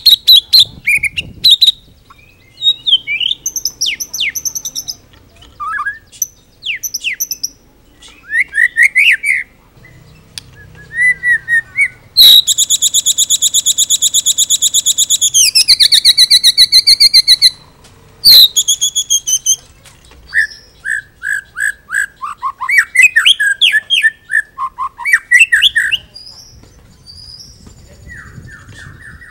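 White-rumped shama (murai batu) singing loudly, a varied song full of mimicked phrases: quick whistles and sweeps, a long rapid buzzing rattle about twelve seconds in, and fast strings of notes near the end.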